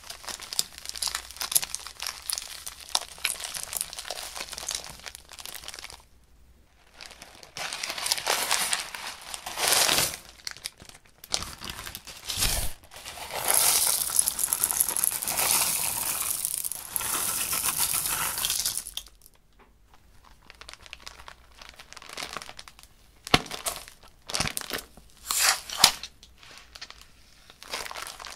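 Plastic bags crinkling and rustling as hands squeeze, open and empty them. About halfway through, small plastic beads pour from a bag into a glass dish for several seconds, and a few sharp clicks come near the end.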